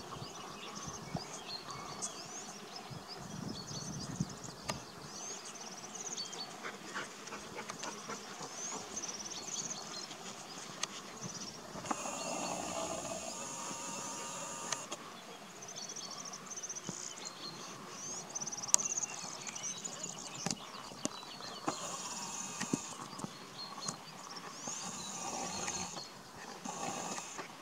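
Quiet outdoor ambience with scattered high-pitched chirping and, a few times, short rushes of hiss.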